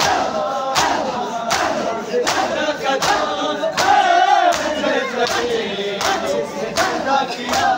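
Large crowd of men chanting a noha together while beating their chests in unison (matam). The slaps fall in a steady beat about every three-quarters of a second under the chanting voices.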